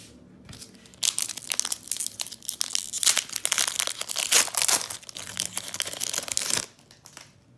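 Foil Pokémon booster-pack wrapper crinkling and tearing as it is opened by hand, starting about a second in and stopping abruptly near the end.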